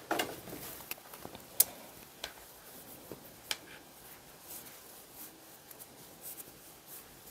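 Faint rustle of cotton yarn and soft clicks of a wooden Tunisian crochet hook as loops are pulled off it on the return pass, with a sharper click about one and a half seconds in.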